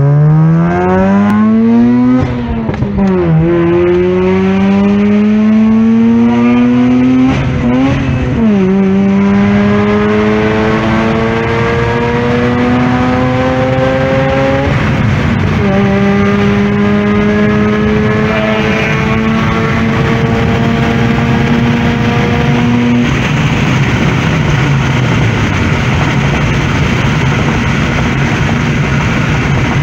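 Mazda RX-8's Renesis 13B two-rotor Wankel rotary engine at full throttle through an Agency Power aftermarket exhaust, heard inside the cabin. The revs climb and drop at three upshifts, the last about halfway through. The engine then holds a steady note for several seconds before the throttle eases off about three-quarters of the way through.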